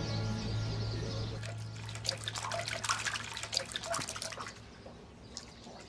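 A held music chord fades out in the first second or so. Then quick, irregular clinks and taps of kitchen work at a counter, thinning out near the end.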